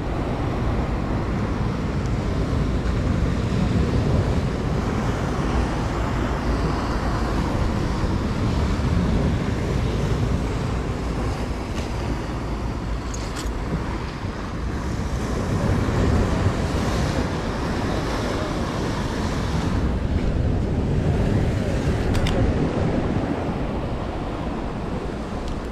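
Wind buffeting the microphone over the steady wash of sea surf against breakwater rocks.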